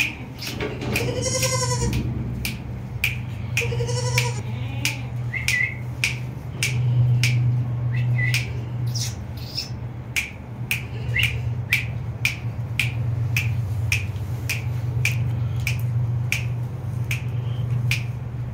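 A white Patira goat bleats twice: a longer call about a second in and a shorter one around four seconds. Sharp clicks come at an even pace, a little under two a second, over a steady low hum.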